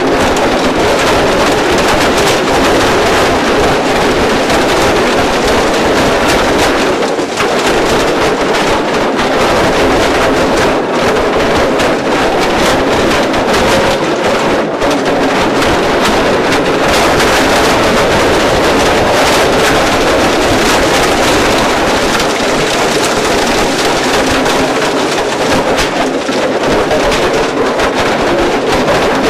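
Cumberland CXS 1200 shredder's rotor tearing up heavy-duty nylon buckets: a loud, continuous din of cracking and crunching plastic.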